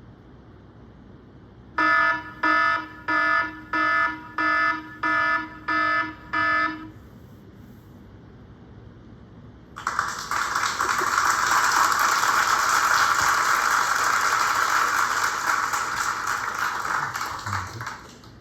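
An electronic alarm beeping eight times in an even rhythm, about one and a half beeps a second. After a few seconds' pause, a loud steady hissing noise runs for about eight seconds.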